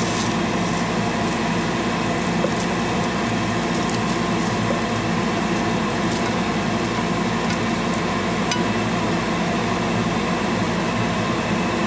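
Steady hum of a kitchen vent fan over the stove, with a few faint scrapes and taps of a spatula on a frying pan as food is tipped into a pot.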